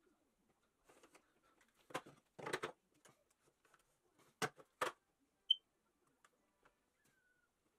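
A few scattered knocks and clicks, with a short rattling cluster about two and a half seconds in. Two sharp knocks follow about half a second apart near the middle, then a brief high chirp.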